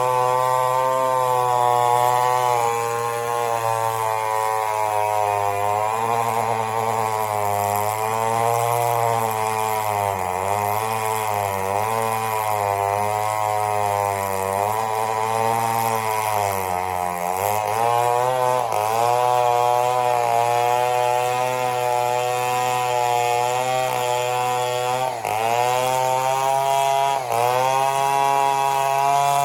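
Two-stroke chainsaw running near full throttle while cutting mahogany, its engine pitch sagging under load and recovering several times. There is a deep sag about seventeen seconds in and two quick dips near the end.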